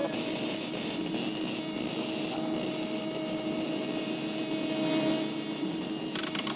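Steady mechanical whirring with a hiss, a machine sound effect on an old cartoon soundtrack.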